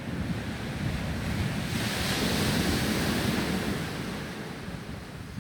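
Ocean surf on a beach: a wave breaks and washes in, swelling about two seconds in and easing off, with wind rumbling on the microphone.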